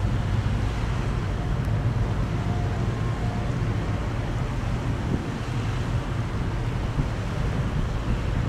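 Steady low drone of a ship's diesel engine passing on the river, with wind rumbling on the microphone.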